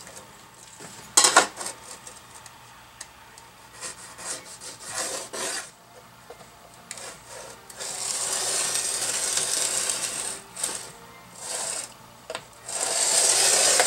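Tools being worked over a sheet-metal plate on a metal bench while it is marked out: a sharp clatter about a second in, scattered light knocks, then long scraping, rubbing strokes of the square and marking tool across the metal in the second half.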